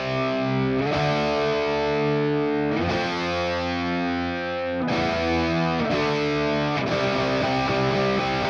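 Electric guitar playing sustained distorted chords through the ML Sound Lab ML800 amp-simulator plugin, a modelled Marshall JCM800 tone on its lower-gain indie rock preset, the chord changing every second or two.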